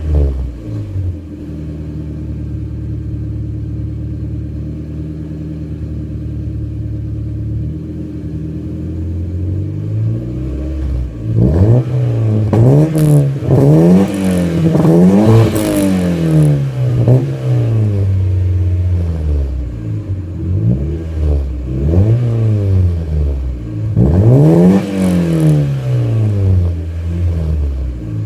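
Ford Escort GTi's 1.8 Zetec four-cylinder engine running through a Sportex cat-back exhaust, idling steadily and then blipped in a run of short revs about eleven seconds in. A few more revs follow after about twenty seconds, dropping back to idle between them and near the end.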